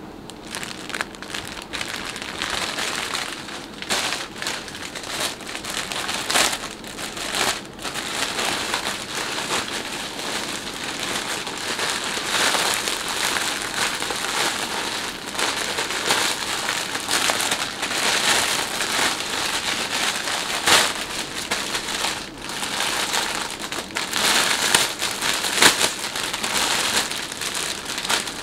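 Clear plastic bag crinkling and crackling as gloved hands handle it and work it open, with irregular sharper crackles throughout.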